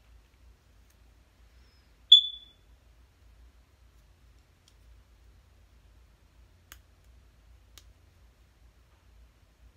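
Fingernails picking at the plastic packaging of a kohl crayon eyeliner: one sharp, high-pitched click that rings briefly about two seconds in, then two faint clicks later.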